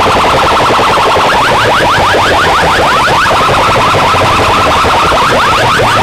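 Rapid siren-like electronic sweeps blasted at full volume through a tall stack of horn loudspeakers on a sound-box rig, each sweep rising in pitch, about eight to ten a second.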